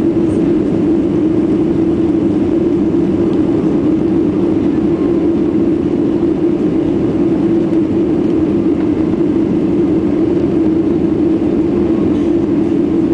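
Cabin noise of a Boeing 737-800 climbing out after take-off: its CFM56 engines and the rush of air, a steady low hum that does not change in level.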